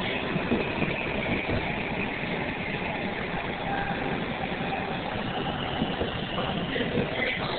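Washington Metrorail train running, heard from inside the passenger car: a steady rumble of wheels and motors with a faint whine.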